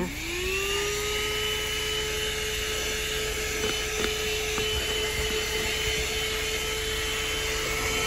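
Handheld 12-volt, 150-watt car vacuum cleaner switched on, its motor spinning up over about half a second to a steady whine with rushing suction air, which holds steady. A few faint ticks come about halfway through.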